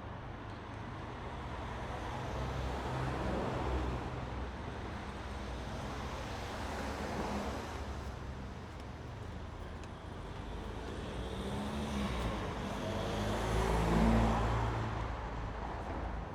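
City street traffic: a steady rumble with cars passing one after another, and a heavier vehicle with a deep engine note passing close, loudest near the end.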